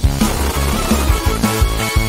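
Background music with a steady, fast electronic beat.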